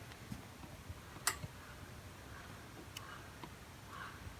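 Faint background hiss with a few sharp clicks, the loudest about a second in and two smaller ones later.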